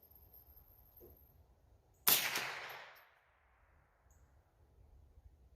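Savage A22 semi-automatic .22 LR rifle firing one shot about two seconds in, the report dying away over about a second, then a second shot right at the end.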